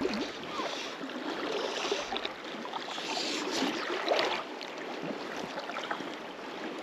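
Steady rush of river water running past the bank, with a few faint knocks.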